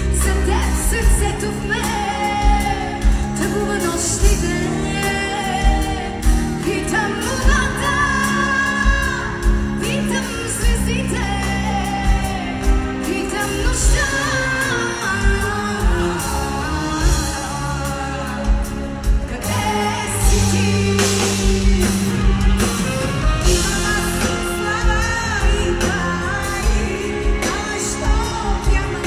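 Live Bulgarian pop-folk performance: female lead vocals with a full band of drums, electric guitar and strings, over a steady beat.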